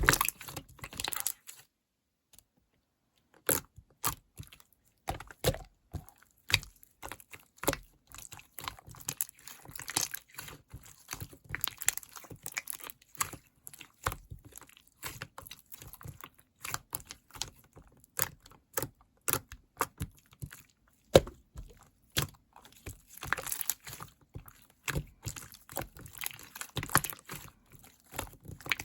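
Green slime being squished and pressed by hand, making a dense run of small clicks, pops and crackles. The sound drops out for about two seconds shortly after the start.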